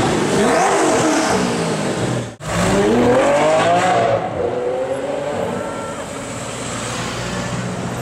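Supercar engines revving: one blip rises and falls, then after a sudden cut another engine revs up, drops back about a second and a half in, and settles into a steady drone.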